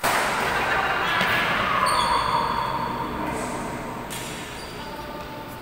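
Badminton being played on an echoing gym court: a sharp racket hit on the shuttlecock at the start, followed by a loud wash of noise that fades over the next few seconds.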